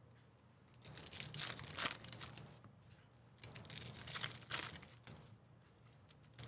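Trading-card pack wrappers crinkling and tearing as packs are opened and handled, in a few short bursts.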